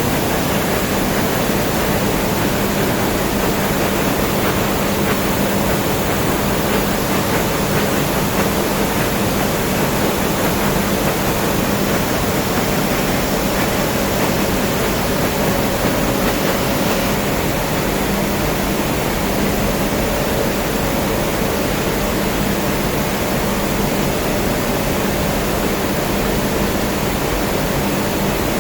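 Steady loud industrial noise from the furnace section of a steel coil processing line: a continuous rushing roar with a faint low hum, without breaks or impacts.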